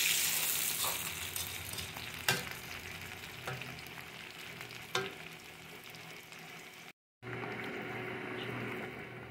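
Small whole potatoes and onion rings sizzling as they fry in oil in a pan, stirred with a fork that clicks sharply against the pan twice. After a short cut, a fork stirs and mashes a moist rice mixture in a bowl.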